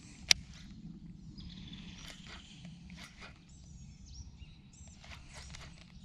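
Quiet riverside ambience with faint bird chirps, and a single sharp click just after the start as the baitcasting reel is handled, followed by a few small ticks.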